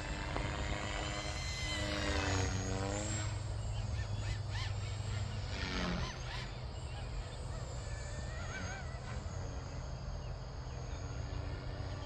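Radio-controlled aerobatic model airplane's motor droning overhead at a distance, its pitch sweeping up and down as the plane manoeuvres, most plainly about two to three seconds in, over a steady background hiss.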